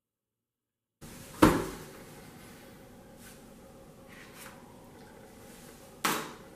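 Two sharp knocks in a kitchen, one about a second and a half in and another near the end, with a few faint ticks between them over quiet room tone; the first second is silent.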